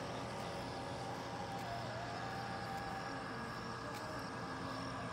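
Steady, even outdoor background noise with no distinct event.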